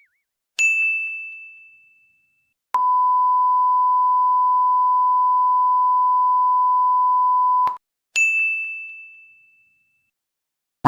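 A bright ding that rings out and fades, followed by a steady pure beep held about five seconds, the familiar censor bleep, then the same ding again. A short sharp burst of sound cuts in at the very end.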